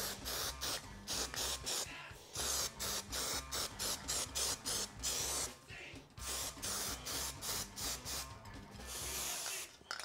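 Paint being sprayed in several hissing bursts, over background music with a quick steady beat.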